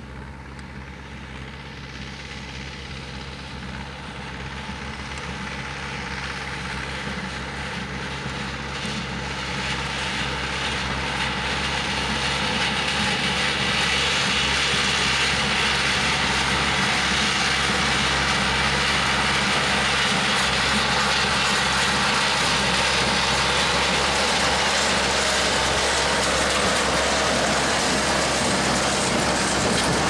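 Tractor engine running steadily while pulling a Hesston 4590 small square baler, growing louder over the first dozen seconds as it approaches and then holding steady and close, with the baler's mechanical clatter mixed in.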